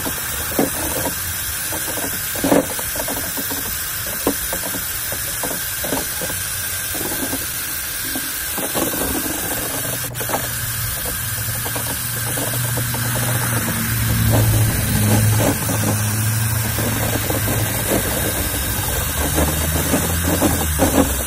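Cordless drill spinning a mixing rod in a backpack sprayer's plastic tank, a steady motor whir with the fertilizer solution churning and knocking against the tank. About halfway through a low steady hum joins in and grows louder.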